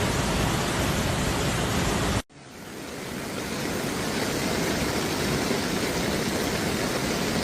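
Steady rushing noise of heavy rain and floodwater. It breaks off abruptly about two seconds in, then swells back up to the same steady level over the next two seconds.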